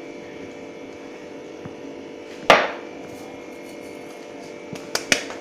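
Steady electrical hum with one sharp knock of a hard object about two and a half seconds in and two lighter clicks near the end.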